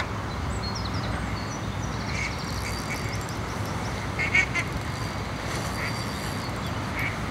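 Ducks quacking several times in short, separate calls, the loudest about four seconds in.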